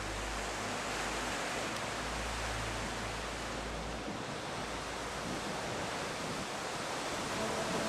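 Steady rushing of sea surf, laid over low sustained music tones that fade out about halfway through.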